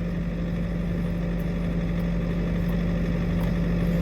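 Skid steer engine idling with a steady low hum, with a few faint clicks over it.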